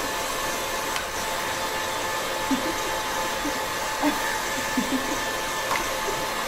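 KitchenAid stand mixer motor running steadily with a faint whine, driving the meat grinder attachment while little or no meat is coming through.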